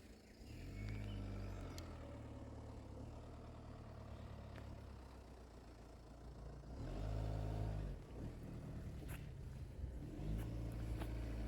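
A motor vehicle's engine running, its low hum swelling as it revs up about a second in, again around seven seconds in and again near the end, with a few light clicks.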